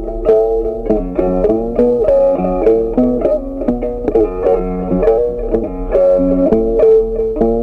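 Instrumental background music on plucked strings: a tune of quick notes.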